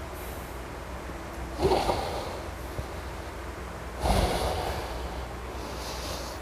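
A man's heavy, forceful breaths through the nose, two loud snorting exhalations about two and a half seconds apart, over a steady low hum.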